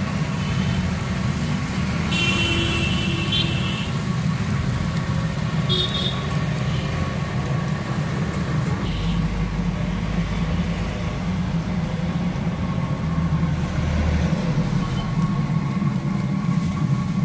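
Nendran banana slices deep-frying in a large wide pan of hot coconut oil: a steady sizzle of bubbling oil over a continuous low rumble.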